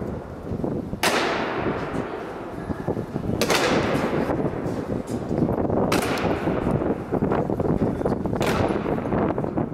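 Honour guards' boots stamping in unison on a stone floor in a slow ceremonial goose step: four sharp stamps about two and a half seconds apart, each echoing long through the hall.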